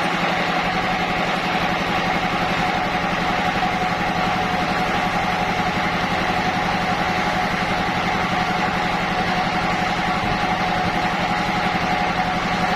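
Sawmill machinery running steadily, an engine-like drone with a constant pitch and level.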